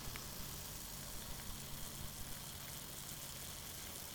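Water heated by an alcohol stove in an aluminium beer-can pot, just starting to boil: a faint steady hiss with small scattered ticks and crackles from forming bubbles.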